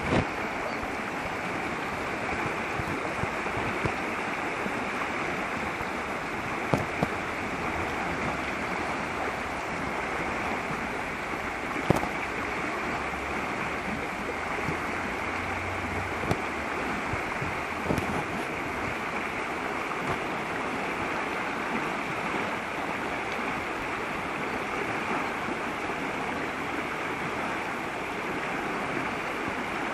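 Mountain stream rushing steadily over rocks, with a few faint sharp clicks now and then.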